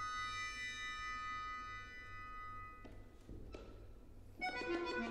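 Solo accordion playing contemporary music: a single high note held for about three seconds, then a couple of soft clicks, then a quick flurry of short staccato notes near the end.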